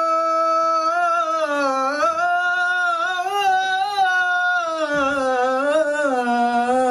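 Unaccompanied male voice singing a naat, a devotional Urdu poem: one steady held note for about a second, then a long wordless melisma winding up and down in pitch.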